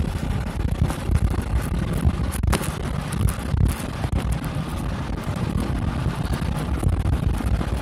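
Steady low rumble of a car driving, heard inside the cabin, with a few sharp ticks of ice pellets hitting the windshield.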